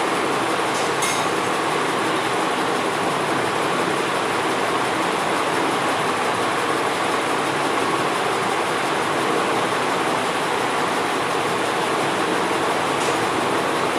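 Masala with fried katla fish pieces sizzling in hot oil in a kadai: a steady, even hiss.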